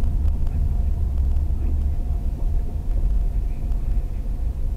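Low, steady rumble of a taxi's engine and road noise inside the cabin as it moves slowly in traffic, with a faint steady hum above it.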